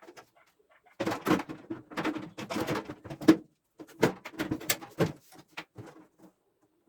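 The outer casing of a microwave oven being fitted back on: a run of clattering knocks, clicks and scraping that starts about a second in and stops shortly before the end.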